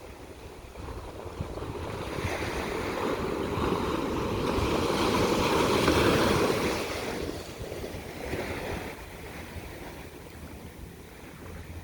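Ocean surf: one wave's wash swells over several seconds, peaks about six seconds in and recedes, with a smaller wash a little later. Wind rumbles on the microphone underneath.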